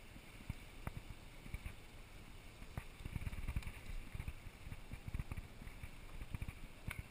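Wind buffeting the microphone over the low rumble of a sportfishing boat manoeuvring slowly, growing a little stronger about halfway through.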